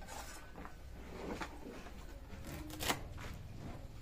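Faint rustling and handling of kitchen things, with one sharp click about three seconds in.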